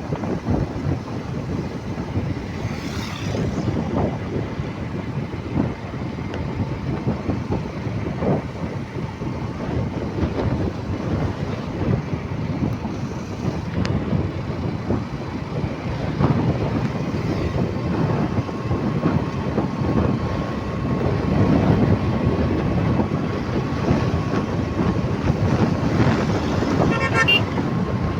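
Continuous road-traffic rumble of vehicles running on the highway, with a thin steady tone in the second half and a short vehicle horn toot near the end.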